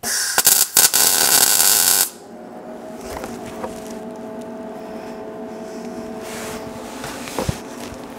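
MIG welding arc crackling for about two seconds as a tack weld goes onto a stainless steel exhaust flange, stopping suddenly. After it, a steady hum with a few held tones carries on, with a single click near the end.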